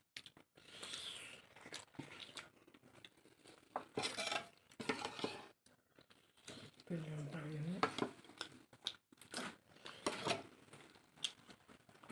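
Eating from a plate: soft clicks, scrapes and crinkling of food and dishware throughout, with a short hummed voice sound about seven seconds in.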